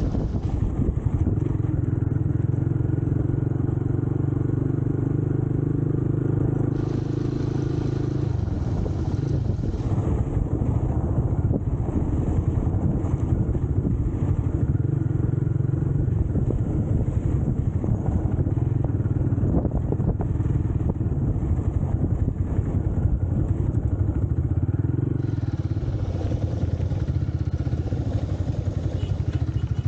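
Scrambler motorcycle engine running steadily while being ridden, its note shifting a few times as the rider changes speed.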